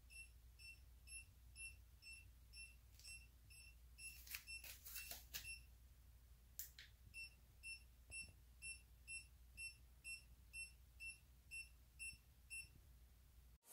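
Faint electronic beeping, about two short high beeps a second, from an Apollo Ghost electric scooter's turn-signal indicator with the Mach 1 controller. The beeping pauses for about two seconds in the middle, where a few soft clicks sound, then carries on and stops near the end.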